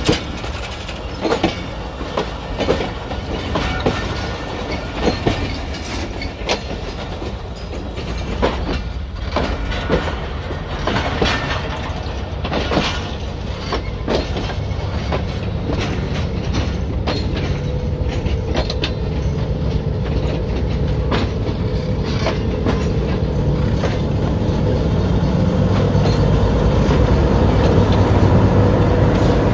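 Passenger coaches rolling slowly past at track level, their wheels and running gear clacking and knocking unevenly over the rail joints. In the second half a diesel locomotive's engine hum builds steadily louder as the locomotive draws near and passes.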